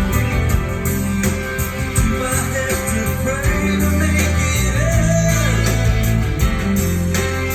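A guitar-led song with a strong bass line and some singing, played back over JBL 4412 studio monitor loudspeakers.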